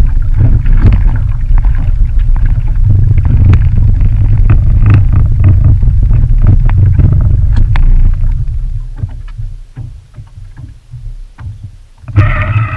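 Small motorboat under way: a loud low rumble of the boat running, with many short knocks. It eases off about eight or nine seconds in as the boat slows. A brief high-pitched whine comes near the end.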